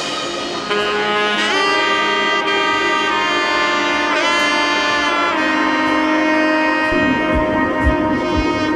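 Background music: a sustained melodic lead with wavering, bending notes over held chords, with low beats coming in near the end.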